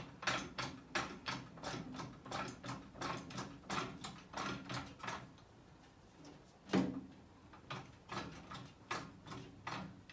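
Trolley jack being pumped by its long handle under a heavy load: a run of rhythmic mechanical clicks, about three a second, that stops about five seconds in. Then comes a single louder knock, and the pumping clicks start again.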